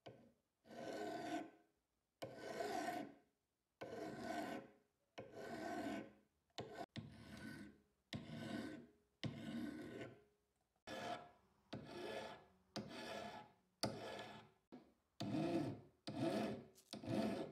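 Flat steel file rasping across the blade tip of an old flat-head screwdriver in a steady series of strokes, dressing the worn tip. The strokes come about one a second at first and grow quicker and shorter near the end.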